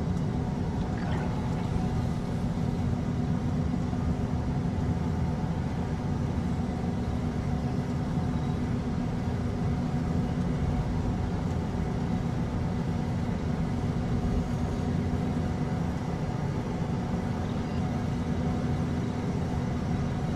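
Sound-designed sci-fi spaceship cockpit ambience: a steady, unchanging low engine hum with a few faint steady tones above it.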